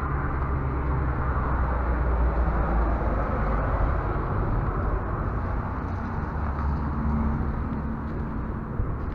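Steady rumble of road traffic, with a faint engine hum rising out of it about seven seconds in.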